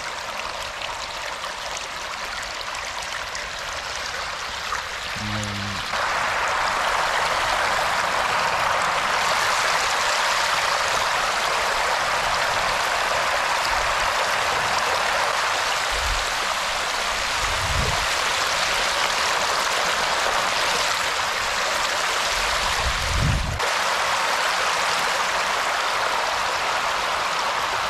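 Steady rush of running water, stepping up louder about six seconds in, with a few dull low thumps in the second half.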